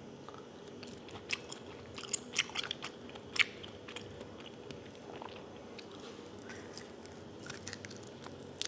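Mouth sounds of a person chewing boiled chicken skin and meat: soft, quiet wet clicks and smacks, in a cluster about a second in and again near the end.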